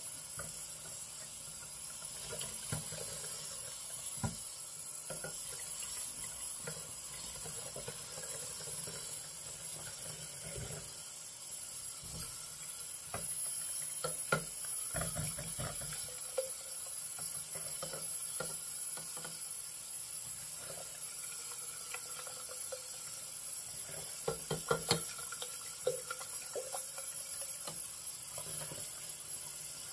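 Hand-washing dishes in a stainless steel kitchen sink: water runs steadily while dishes and a plastic bowl clink and knock now and then, with a louder knock about halfway through and a cluster of them near the end.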